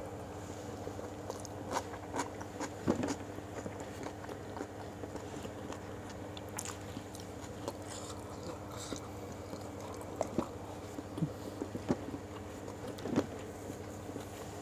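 Close-up chewing and mouth sounds of a person eating rice and fried chicken by hand, with scattered wet smacks and small crunches. A steady low hum runs underneath.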